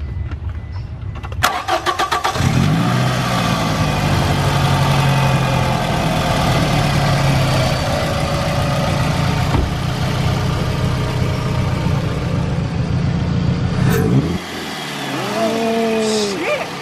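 Scion tC's four-cylinder engine cranked by the starter, catching after about a second. It then runs steadily with the added intake noise of a freshly fitted short ram air intake. The engine sound drops away suddenly near the end.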